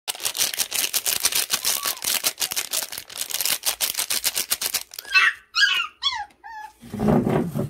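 Plastic milk-powder sachet crinkling and rustling as it is shaken over a bowl. About five seconds in, a puppy gives about five short whining cries that each fall in pitch, then a louder, lower rough sound near the end. The puppy is shrieking at the sound of the milk bag, eager to be fed.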